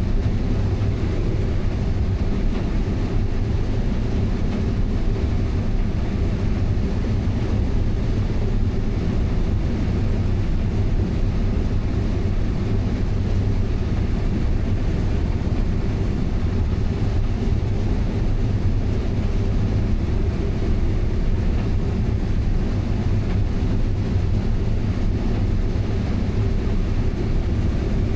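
Heavy diesel farm machinery running steadily under load: a constant low drone with no change in pitch.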